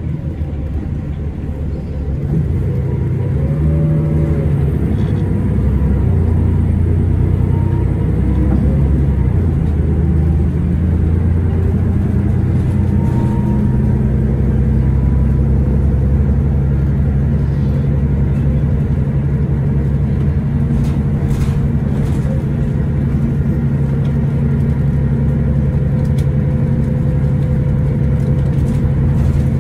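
Cummins ISL9 diesel engine of a 2011 Orion VII transit bus under way. It gets louder about two seconds in and changes pitch several times over the next ten seconds as the bus gathers speed, then runs steadily, with a few faint rattles later on.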